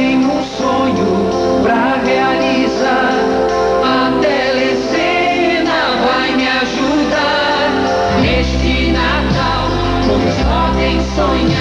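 Sung TV commercial jingle: voices singing over a pop backing track, with a heavy bass coming in about eight seconds in.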